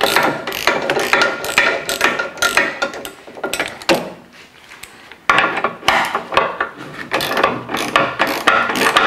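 Hand ratchet clicking rapidly as bolts are undone from a car's rear crash beam. It stops for about a second and a half around four seconds in, then clicks on again.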